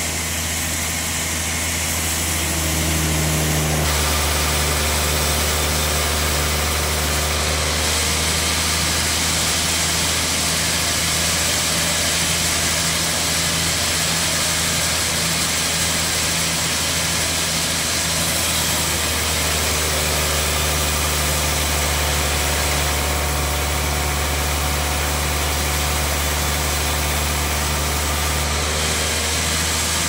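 Large log bandsaw mill running steadily and sawing a big log. It holds a low, even hum, and its tone shifts about four seconds in and again a few times later.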